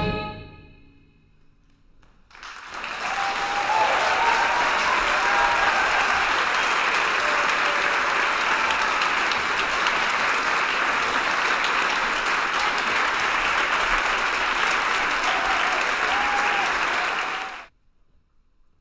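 The last held chord of a flute orchestra with a singer fades away, and after a brief hush a hall audience applauds steadily. The applause cuts off abruptly near the end.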